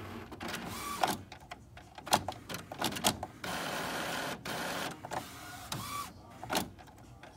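Epson inkjet printer powering down: its carriage motor runs steadily for a couple of seconds as the print head travels back to its rest position and locks, with sharp mechanical clicks before and after the run.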